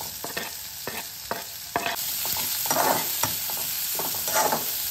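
Chopped onions scraped off a wooden board with a metal spatula into hot oil in an aluminium kadhai, then stirred. The spatula scrapes and taps against board and pan while the oil sizzles, louder from about two seconds in.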